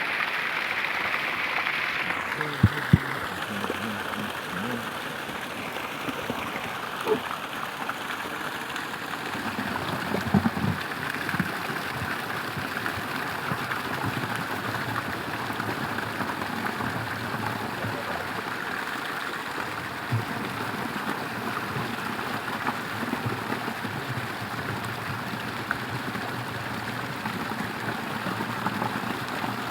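Steady rush of running water, with a few soft knocks about 3, 7 and 10 seconds in.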